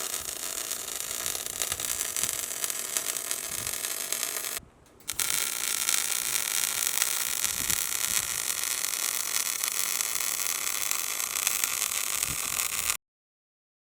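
Electric welding arc crackling and hissing steadily in two long runs, with a short break between them about four and a half seconds in; it cuts off sharply near the end.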